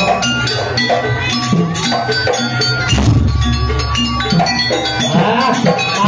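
Live jaranan music: a gamelan-style ensemble of struck metal gongs and drums playing a busy, steady rhythm, with a deep gong sounding about halfway through.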